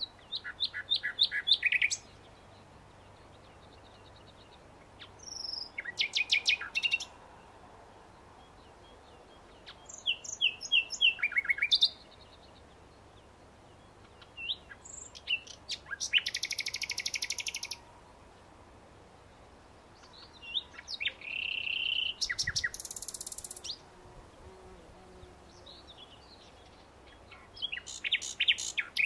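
Common nightingale singing: six loud song phrases of rapid repeated notes, some pure and whistled, some harsh and buzzing, each lasting two to three seconds, with pauses of a few seconds between them.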